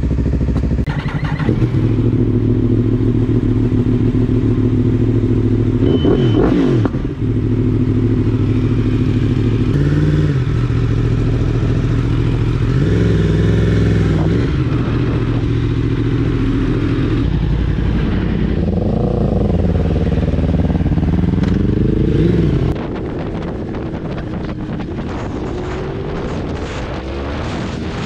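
Yamaha YZF-R1's crossplane inline-four engine running as the bike pulls away, with a few rising and falling swells of revs. About 23 s in the engine sound drops and gives way to a noisier rush of riding along the road.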